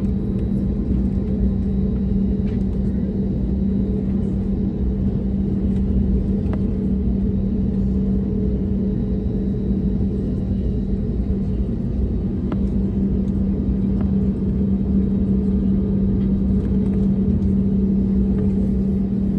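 Cabin noise inside a taxiing Airbus A320neo: the CFM LEAP-1A turbofans running at taxi power, giving a steady drone with a constant low hum over a rumble from the wheels, with a few faint clicks.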